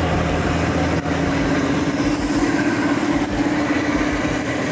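Coir mill machinery separating coconut-husk fibre from pith, running steadily: a loud mechanical drone with a constant hum.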